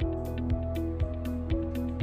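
Background music with a steady beat of about two strikes a second under gentle held notes.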